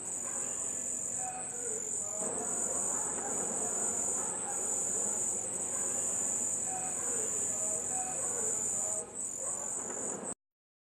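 Crickets chirping in a dense, steady high trill with a few brief dips, over a faint murmur of other lower sounds. It cuts off suddenly near the end.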